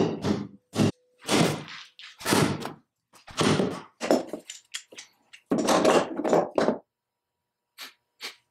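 Heavy thunks and knocks of the rusty cast-iron belt lacer being handled and worked on a wooden workbench, roughly one a second, thinning to a few lighter taps near the end.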